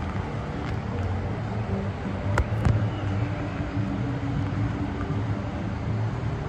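Steady low outdoor rumble with a hum in it, broken by two sharp clicks a fraction of a second apart about two and a half seconds in.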